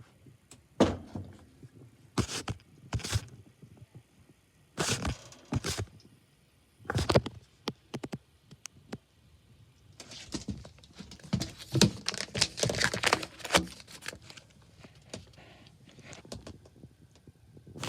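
Handling noises at a furnace cabinet: a few separate thunks and knocks, then several seconds of busy rustling and clattering.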